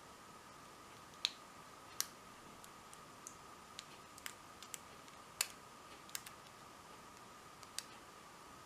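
Pick and tension wrench working the pins of an Abus My Sport 40mm aluminium padlock during single pin picking: about a dozen light, irregular clicks, a few of them louder, as pins are lifted and set. A faint steady high whine runs underneath.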